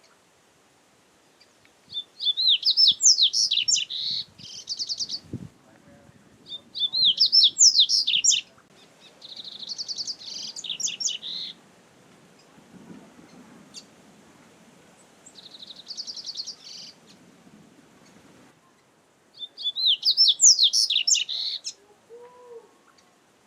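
Double-collared seedeater (coleiro) singing: five high song phrases, each a quick run of sweeping chirps mixed with fast, buzzy trilled notes, separated by pauses of a few seconds.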